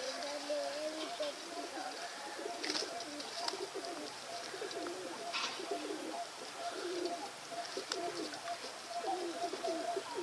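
Several pigeons cooing, their short warbling calls overlapping one another throughout. A faint steady hum runs underneath, and there are two brief sharp noises, about three and five and a half seconds in.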